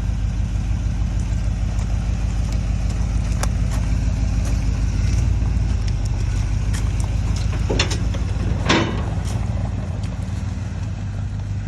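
Ford F-250's 351 (5.8-litre) V8 running steadily. About three quarters of the way through there is a short squeak, and the low rumble then eases a little.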